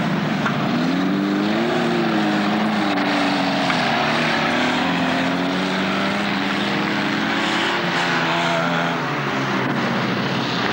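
Stock car engines racing on a dirt track, revving up and down as the cars pass, over a constant loud wash of engine noise.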